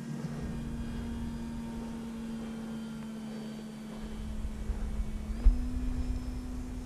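FMS Beaver RC model plane's electric motor and propeller running with a steady drone, stepping up in pitch about five and a half seconds in as the throttle is opened. Wind buffets the onboard microphone with a low rumble and one sharp thump near the end.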